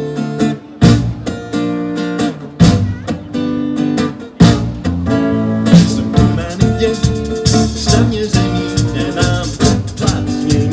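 Live band playing: acoustic guitar, stage piano, electric bass and drum kit. It opens with a few hard-hit chords about two seconds apart, with short breaks between them, then settles into steady playing with cymbals coming in.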